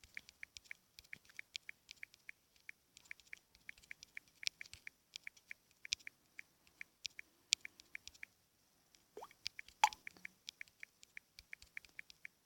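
Faint clicks of a phone's on-screen keyboard, several quick taps a second with short pauses, as text is typed. About nine seconds in, a short rising swoop sounds along with a brighter click.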